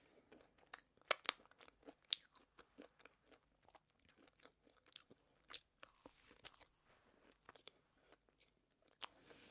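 Close-miked chewing of a mouthful of cake: faint, irregular wet mouth clicks and smacks, with a few sharper clicks about a second in and again around the middle.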